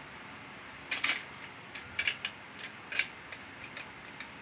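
Plastic Lego bricks clicking and clacking as a child picks through and handles them, a few light sharp clicks about once a second.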